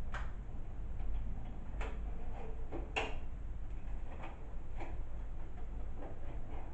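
About half a dozen light clicks and knocks at irregular spacing over a steady low hum, like small hard parts being handled and set down.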